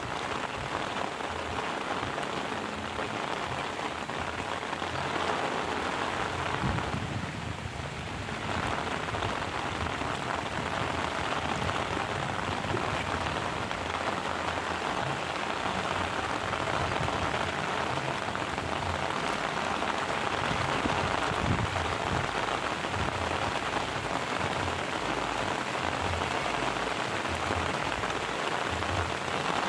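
Heavy rain falling steadily, an even hiss with a brief lull about seven seconds in.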